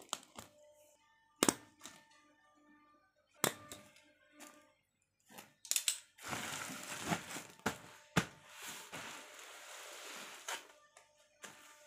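Scissors snipping through a woven polypropylene cement sack: a few sharp snips a second or two apart. Then the plastic sack rustles and crinkles for about four seconds as it is handled.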